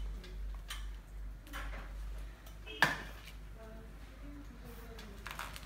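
Hands handling and smoothing a chiffon scarf on a mannequin head: short soft rustles, with one sharp click a little under three seconds in, over a steady low hum.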